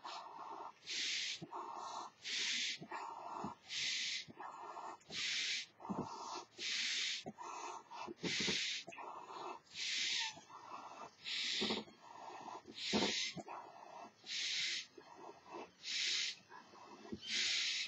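A person blowing up a large duck-shaped balloon by mouth, breath after breath: a quick hissing intake of air, then a puff pushed into the balloon, about one breath every second and a half. The duck's body is filling out behind the already inflated beak.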